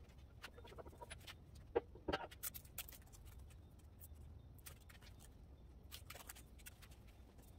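Scattered light clicks and taps over a faint steady low hum, with the sharpest clicks about two seconds in.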